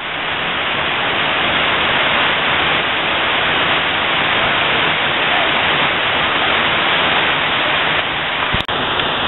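Water rushing steadily over a weir, churning through the white water at its foot. A brief break with a click near the end.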